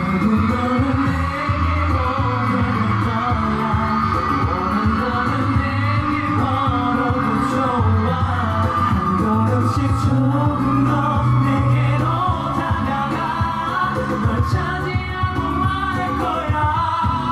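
Pop song performance playing: male voices singing a melody over a backing track with a steady beat.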